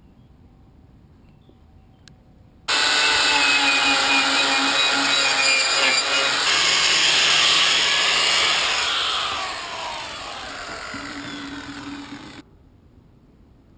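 Electric angle grinder grinding steel sheet pieces, with a high whine over a harsh grinding noise. It starts suddenly about three seconds in, drops in pitch and gets quieter in the last few seconds, then cuts off.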